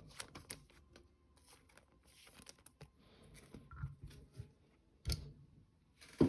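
Trading cards being handled and flipped through by hand: soft sliding and light clicks, a few dull thuds, and a sharper knock near the end.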